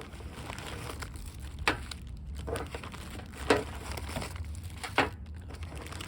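Plastic packaging crinkling as turn-signal kit parts are handled and laid out on a flat surface, with about five sharp light knocks as pieces are set down, over a steady low hum.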